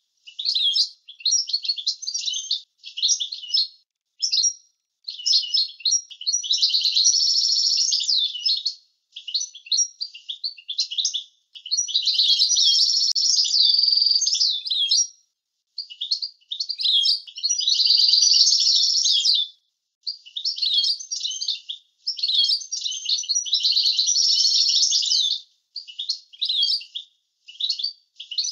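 European goldfinch singing: quick twittering phrases broken by short pauses, with four longer runs of fast trilling of two to three seconds each.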